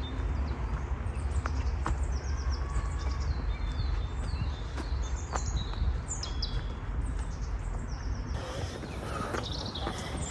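Several songbirds chirping in a forest, with many short falling notes repeated throughout, over a steady low rumble.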